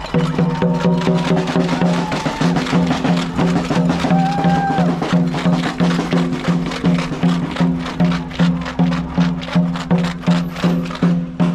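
A drum beaten in a steady, fast rhythm, about three strokes a second, as marching protest drumming.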